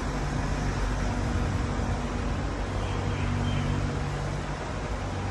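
Steady rumble of road traffic with a low engine hum that swells and fades.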